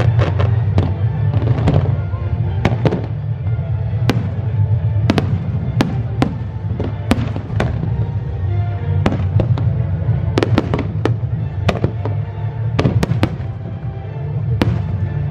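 Aerial fireworks shells bursting in a dense, irregular string of sharp bangs, often more than one a second, over music.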